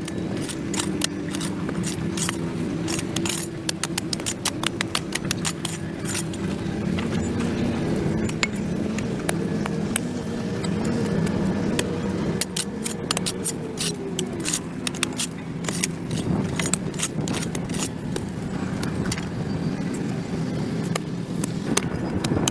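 Repeated scraping and clicking of a hand tool, such as a shovel or scraper, on a concrete sidewalk as dirt and grass are cleared, coming in uneven runs. A steady low engine hum runs underneath, its pitch dropping once about two-thirds of the way through.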